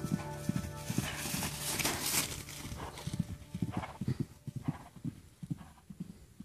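Hoofbeats of a galloping horse on grass turf: a run of dull thuds that grows fainter as the horse runs off, with a brief rushing noise about a second in.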